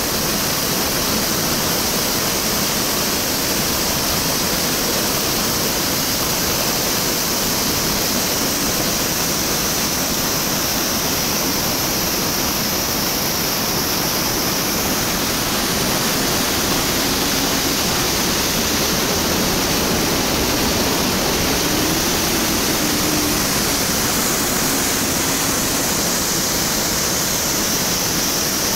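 Creek in high water pouring over a boulder cascade: a loud, steady rush of whitewater.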